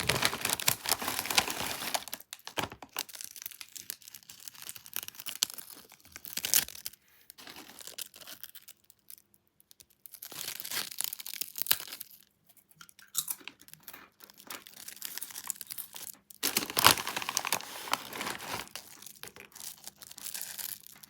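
Crinkly plastic potato-chip bag being handled, crinkling and rustling in irregular bursts with short pauses between them. It is loudest at the start and again about seventeen seconds in.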